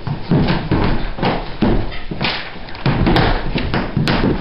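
Feet thumping and stamping on a floor through dance steps: a run of irregular thuds, about two or three a second.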